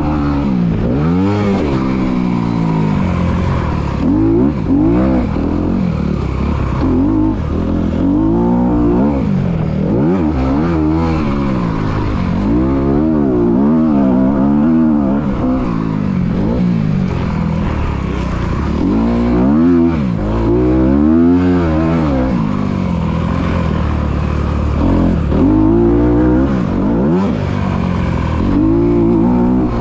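Dirt bike engine heard from on board while riding a motocross track, revving up and down as the throttle is opened and closed. Its pitch climbs and drops every second or two.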